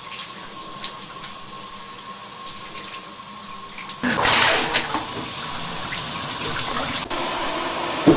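Shower running: a steady hiss of water spray, with a faint steady whine underneath in the first half. About halfway through, the spray turns louder and brighter.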